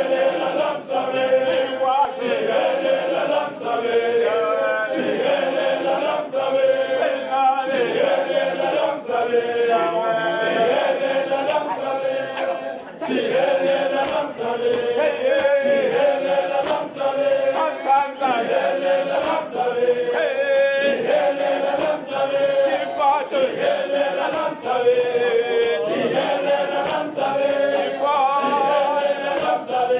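Men's choir singing in harmony, unaccompanied, with stamping feet keeping a beat of sharp knocks about once a second as they dance.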